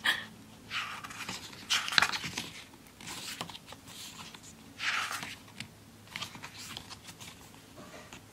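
Pages of a thick photo book being turned by hand: a string of short papery swishes, about one every second or so, with a light tick about two seconds in.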